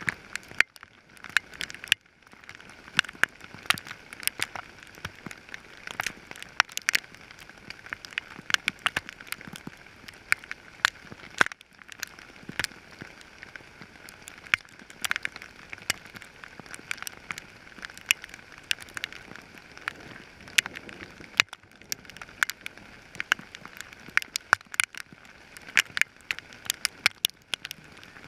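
Hail pelting down onto hail-covered ground: a dense, steady patter broken by many sharp, irregular clicks of stones striking close by.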